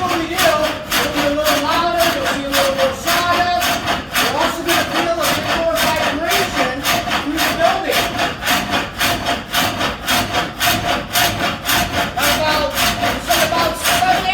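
Water-powered trip hammer running at speed, its wooden works beating out a steady, rapid rhythm of strokes with a wavering squeak.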